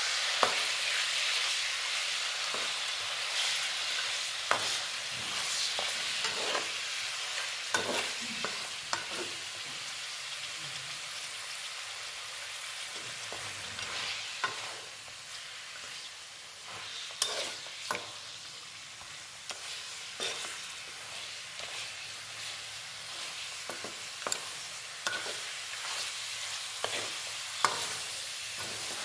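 Mutton chops sizzling in hot coconut oil in a karahi, with a metal spatula scraping and knocking against the pan at irregular intervals as the meat is stirred and turned. The sizzle eases a little midway.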